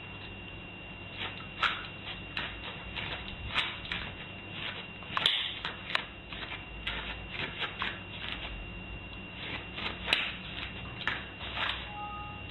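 A small terrier's paws tapping and scuffing on a doormat in irregular light clicks, over a faint steady high whine.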